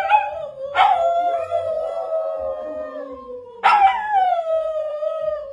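A dog howling in long drawn-out howls. Each starts sharply and slowly sags in pitch; a new howl begins about a second in and another just past halfway.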